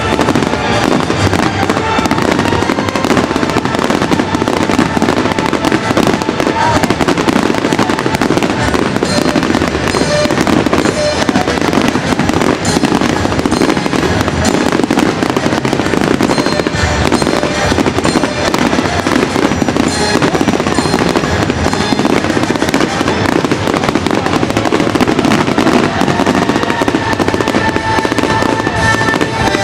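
Fireworks display: continuous dense crackling and popping of bursting shells, with music playing alongside.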